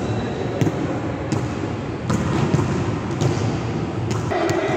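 Volleyball rally in a large gym: a string of sharp hits and thuds as the ball is struck and lands, over the steady noise of players moving on the court. A held pitched sound comes in near the end.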